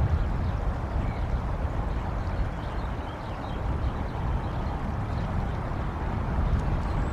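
Wind buffeting an outdoor microphone: an uneven low rumble with a lighter hiss above it, swelling and easing.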